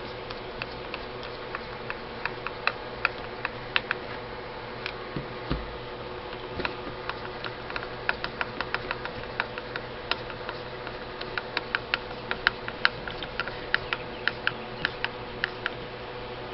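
Light, irregular metallic clicks and ticks, several a second in spells, as screws are driven back in behind the AK-47's receiver to fasten the wooden stock. A single dull thump about five seconds in.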